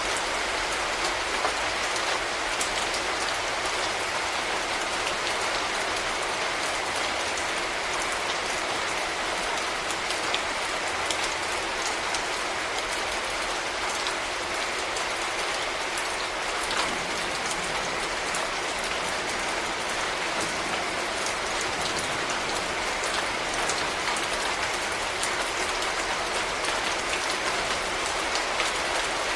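Steady rain falling and spattering on hard surfaces, an even hiss dotted with the ticks of individual drops.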